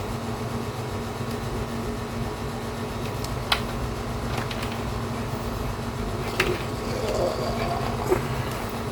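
Steady mechanical hum with a few sharp clicks, three in all, from small parts being handled.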